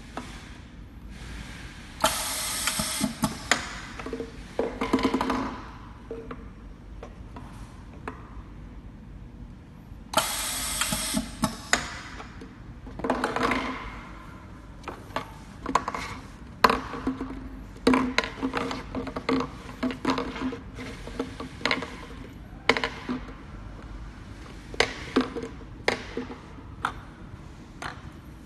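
Semi-automatic pneumatic labeling machine cycling, with two loud hissing bursts of a little over a second each about 2 and 10 seconds in. After that, repeated light knocks and clatter as plastic bottles are handled and set down one after another on a wooden bench.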